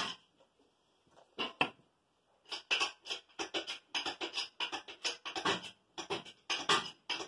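Chain hoist being worked, its chain clinking in quick runs of short metallic clicks, a few a second, with two short pauses in the first couple of seconds.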